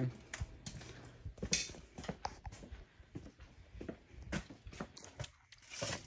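Faint, irregular light footsteps and taps, with a few clicks and rustles from a handheld phone camera being carried.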